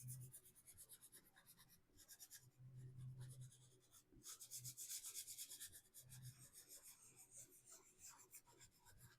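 Soft pastel rubbing and scratching across paper in quick repeated strokes, faint and in spells, as a background is laid in.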